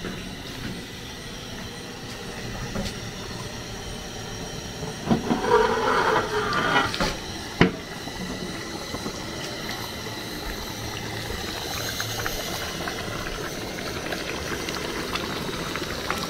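Gas burner hissing steadily under a large aluminium pot of simmering stew. About halfway through there is a louder stretch of clatter ending in one sharp metallic clank as the pot's lid is taken off and set down.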